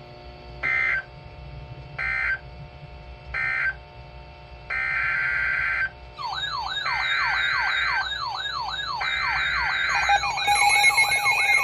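Emergency Alert System SAME digital data bursts from a weather radio broadcast: three short, buzzy bursts that end the previous warning, then three longer bursts of the next warning's header. About six seconds in, a wailing siren-like alert sets in, rising and falling about twice a second, and a steady alarm tone joins near the end, signalling a new severe thunderstorm warning.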